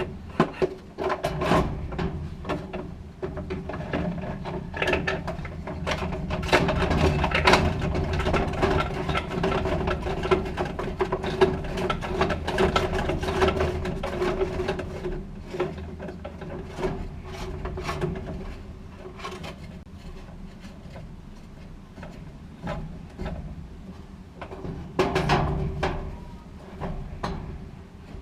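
Clicks, knocks and scraping of dryer parts being handled while the drive motor is fitted into the blower wheel, busiest in the first half and again briefly near the end, over a steady low hum.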